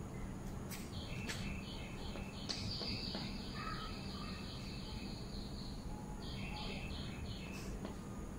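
Chalk on a blackboard as tally marks are drawn: a few sharp taps, mostly in the first second and once near the end. Under it run repeated high animal chirps, with one long high note in the middle, and a low steady hum.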